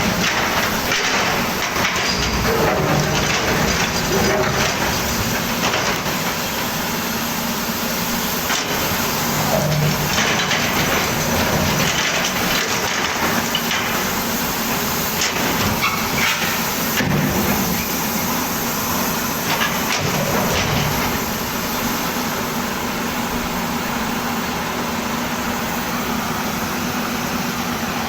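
Volvo hydraulic excavator working: a steady engine and hydraulic noise, with a few knocks along the way.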